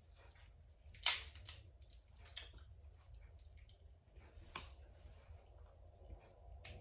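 Close-miked eating of seafood by hand: wet chewing and smacking with a few sharp cracks or clicks spread through, the loudest about a second in.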